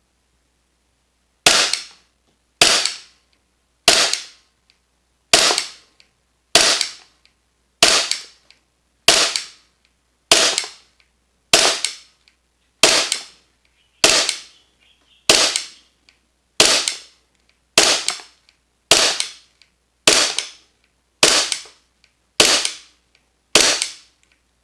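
VFC Umarex Glock 45 gas blowback airsoft pistol firing single shots in a steady string, about nineteen sharp cracks roughly one every 1.2 seconds, each from the slide cycling. The pistol still has its stock cylinder bulb and is being fired over a chronograph.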